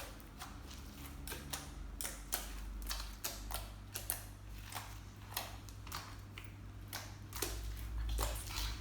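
Sticky homemade slime being pressed and stretched so trapped air bubbles pop with sharp, irregular clicks, a couple to a few each second.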